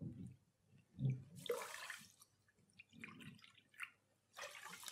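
Water poured from a glass measuring jug into a saucepan of rice, splashing in two short pours, the first about a second in and the second near the end.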